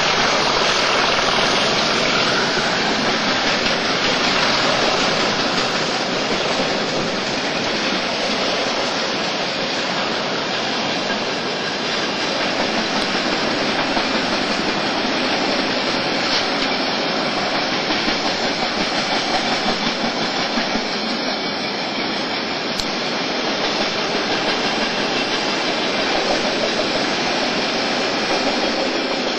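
Container wagons of a long, loaded freight train rolling past: a steady rumble and rattle of wheels on the rails.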